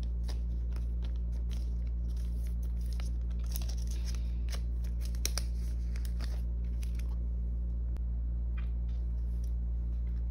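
Clear resealable plastic photo card sleeves crinkling and rustling as photo cards are handled and shuffled, a string of small crackles over a steady low hum.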